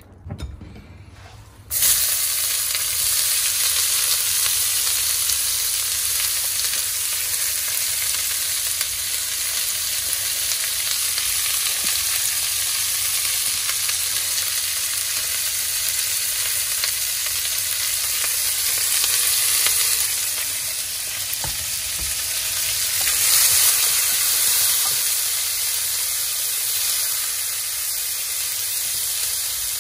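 A few faint clicks, then a loud, steady hiss starts suddenly about two seconds in and keeps on without a break.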